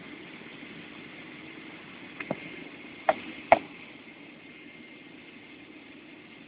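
Cabin hum of a Boeing 777-300ER taxiing with its GE90-115B turbofans at idle: a steady rumble with a thin whine. A little after two seconds in come four sharp clicks within about a second and a half, the last two the loudest.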